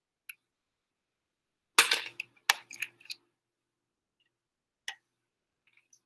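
Plastic microcentrifuge tubes and spin columns being handled at a tube rack: a handful of sharp plastic clicks and snaps, the loudest about two seconds in, with a few more after it and another near the end.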